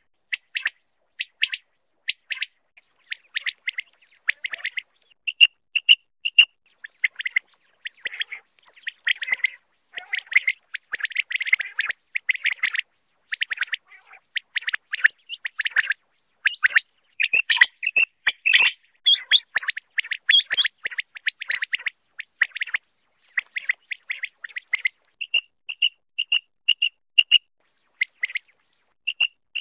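Common quail calling: dense clusters of short, rapid chirping notes, broken twice by a string of clear piping notes at about three a second.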